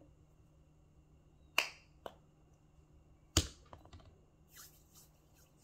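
Plastic flip-top cap of a hand lotion bottle snapping open and shut: two sharp clicks, with a fainter one between them, followed by a light rustle of tissue paper near the end.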